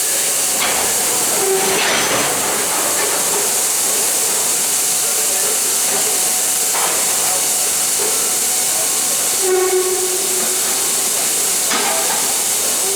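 Railway grain hopper wagons at an unloading pit: a loud, steady hiss throughout, broken by a few metallic clunks and short squeals, the strongest squeals about one and a half seconds and nine and a half seconds in.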